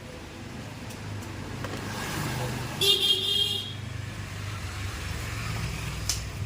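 Road traffic with an engine running steadily, and a vehicle horn toots once, briefly, about three seconds in.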